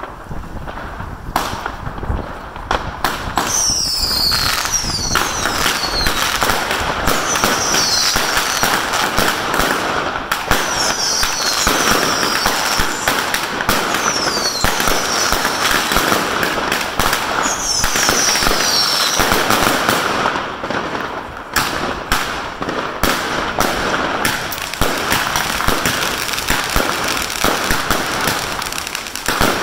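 Fireworks going off in rapid succession: bangs and continuous crackling, with about six short whistles sliding down in pitch over the first twenty seconds.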